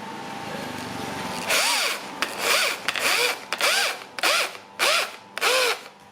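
Power drill run in about seven short bursts from about a second and a half in, the motor spinning up and winding down with each squeeze of the trigger.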